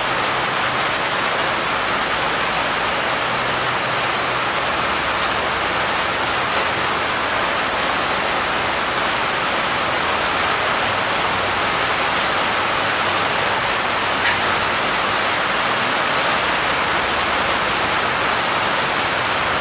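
Heavy rain falling steadily, an even hiss that does not let up, with one faint click about fourteen seconds in.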